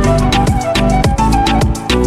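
Background music only: an upbeat electronic track with a steady drum beat, a lead melody and falling bass notes.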